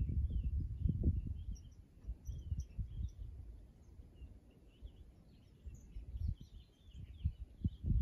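Many wild birds chirping and calling, short scattered notes all through, under a low gusty rumble of wind on the microphone that is strongest in the first second or so and picks up again near the end.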